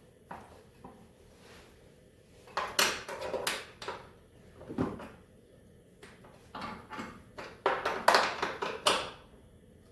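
Irregular metallic clattering and scraping of a wrench working on rusty engine bolts, in several bursts.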